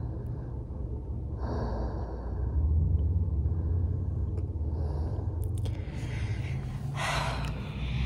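A person's breathing close to a phone microphone, with two audible breaths, about a second and a half in and near the end, the second the louder, over a low steady rumble.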